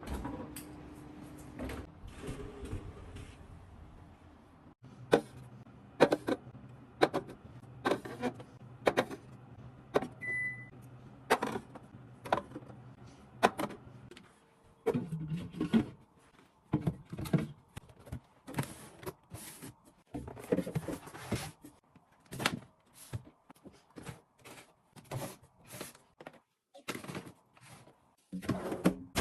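A run of sharp knocks and clacks of objects being handled, sparse at first and then coming one or two a second. A steady low hum runs under the first half and stops about halfway through. A short beep sounds about ten seconds in.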